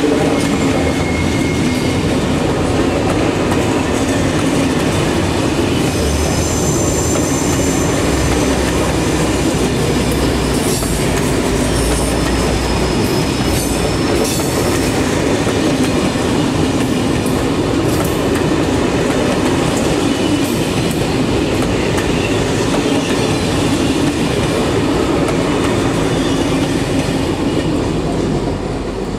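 SNCF Corail passenger coaches rolling past at close range: a steady rumble of steel wheels on rail with clicks over the rail joints, and a high wheel squeal from about six to fifteen seconds in. The noise falls away near the end as the last coach passes.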